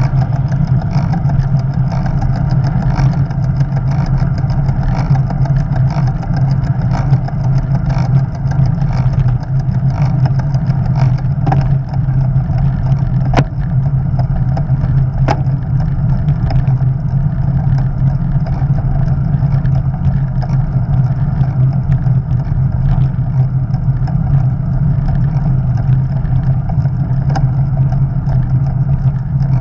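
Steady wind rush and tyre noise of a road bicycle riding at speed, picked up by its action camera, with faint light ticks through the first half and a couple of sharp clicks near the middle.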